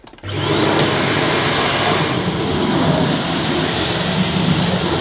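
Dyson Ball Animal Multifloor upright vacuum cleaner switched on: the motor spins up with a whine that rises over the first second, then runs steadily with a loud rush of air.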